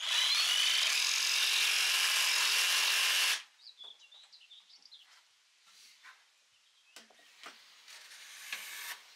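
Cordless jigsaw cutting through a wooden plank, running steadily for about three and a half seconds and then stopping abruptly. After it stops, only faint handling clicks and scratches remain.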